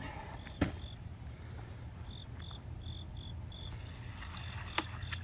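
Crickets chirping in short, even high pulses, about three a second, with a sharp knock about half a second in and another near the end. From about three and a half seconds in, a faint splashing hiss as thick liquid manure tea is poured from a bucket onto the compost pile.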